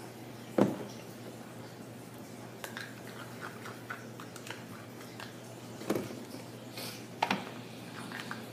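A few sharp knocks and light clatter of small plastic containers being handled and set down on a wooden table, the loudest about half a second in, with small clicks of a stick working in a plastic cup. A steady low hum runs underneath.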